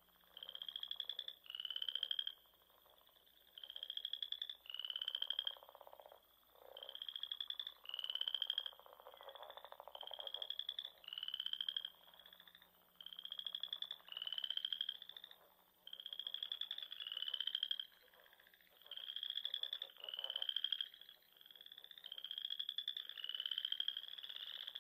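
Frogs calling over and over: short, rapidly pulsed high calls, each under a second long, repeating about once a second.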